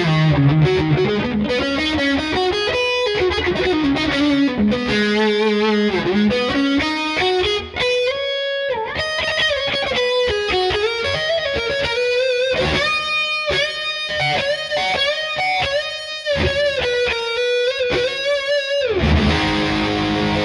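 Gibson Les Paul Studio 2015 electric guitar played with overdrive: a single-note lead line with bent notes and vibrato, changing to strummed chords about nineteen seconds in.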